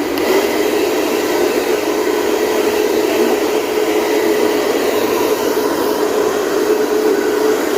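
Sonar hair dryer running steadily on a test run: a continuous blowing noise with a constant hum.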